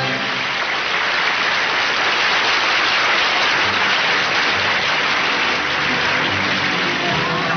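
Studio audience applauding. A band's music comes back in near the end.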